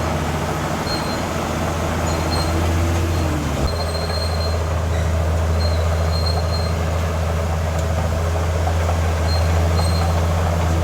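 Heavy diesel earthmoving machinery running steadily under load, with a low drone that shifts slightly about three and a half seconds in and faint high squeaks coming and going.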